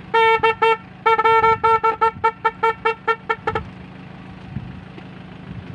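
Motor grader's electric horn sounding in quick stuttering toots, a few at first, then after a short gap a run of about a dozen shorter ones that stops about three and a half seconds in, as its wiring makes and breaks contact during testing. A steady low hum runs underneath.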